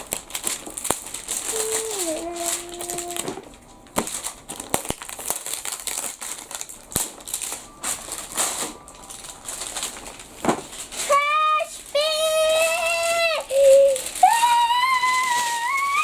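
Crinkling and clicking of a surprise egg's wrapping being handled and torn open. In the last few seconds a child's voice makes several drawn-out high notes, each about a second long, the last ones rising.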